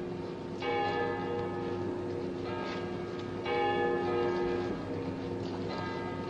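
Church bells tolling, with new strokes about every three seconds and each stroke ringing on long after it is struck.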